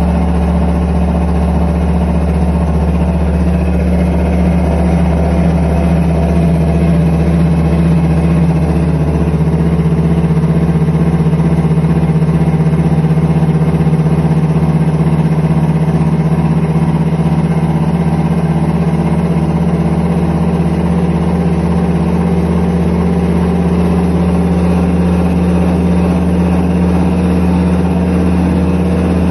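IPSO commercial washing machine running with bad drum bearings, a loud, steady low drone with a hum that holds throughout.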